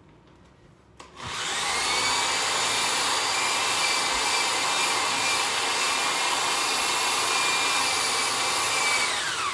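Cordless drill running steadily, its bit boring through a wooden cutting board. It starts about a second in with a motor whine that rises as it spins up, holds steady, and winds down near the end.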